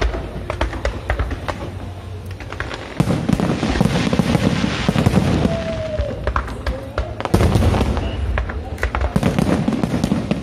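Fireworks going off in a rapid series of bangs and crackles. The bangs thicken into dense barrages about three seconds in and again a little past seven seconds.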